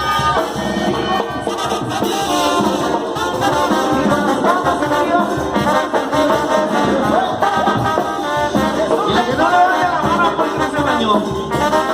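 Upbeat Latin dance music with a brass section of trumpets and trombones playing melodic lines over busy percussion.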